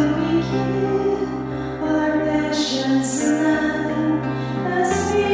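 Slow, tender ballad backing music from a karaoke track, sustained chords held between sung lines, changing chord about five seconds in.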